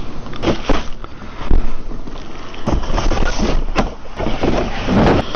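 Handling noise of hard plastic vacuum cleaner parts: a string of clacks and knocks over rustling, the loudest about a second and a half in.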